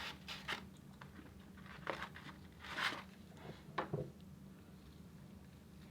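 A person eating close to the microphone: scattered bites and chewing, with a handful of short mouth clicks and a brief rustle about three seconds in.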